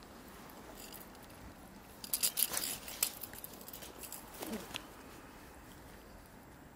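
A freshly landed European perch flapping on grass and being handled: a burst of sharp rustles and clicks about two seconds in, then a few softer handling sounds.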